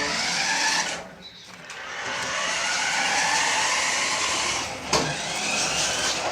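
Small electric motor of a toy remote-control car whirring as it drives, its pitch rising and falling, dropping off briefly about a second in. A sharp knock about five seconds in.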